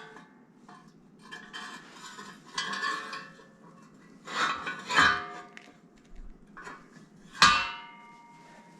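Metal parts and tools clinking and clanking as the treadle is fitted back onto a power hammer. There are several separate knocks, and one sharp, ringing clank about seven and a half seconds in is the loudest.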